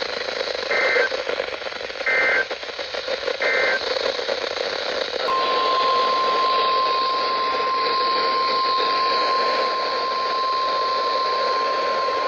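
NOAA Weather Radio Emergency Alert System header: three short screeching data bursts of the SAME code about a second apart, then about five seconds in the steady, piercing 1050 Hz attention tone begins and holds. These tones mark the start of a new alert broadcast. Receiver hiss runs under both.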